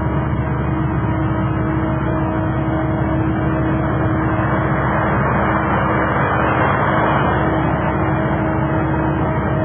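A car driving past on a road, its engine and tyre noise swelling and fading over a steady hum.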